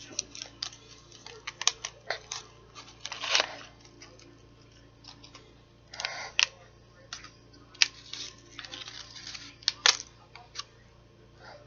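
Wrapper on a chocolate bar being handled and opened: scattered sharp clicks and short crinkling rustles.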